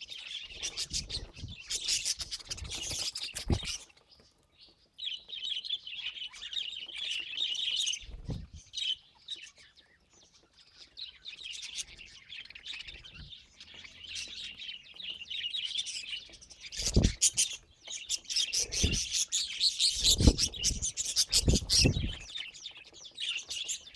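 Budgerigars chirping and chattering in a fast twittering stream that breaks off briefly twice, with several dull thumps in the second half.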